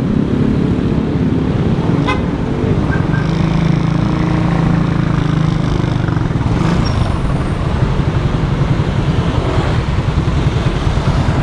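Motorcycle engine running at low speed in traffic, a rapid low rhythmic pulsing, with road and traffic noise around it.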